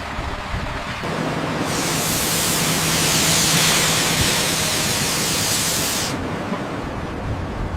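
A loud, steady hiss comes in about two seconds in and cuts off sharply about six seconds in. It sits over rumbling machinery noise with a low steady hum.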